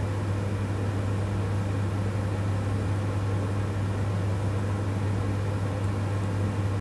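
Steady low hum with an even background hiss, unchanging throughout.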